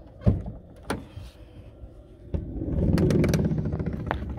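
Campervan side door being opened: two sharp clicks of the handle and latch, then a low rumbling rush for about two seconds as the door slides open.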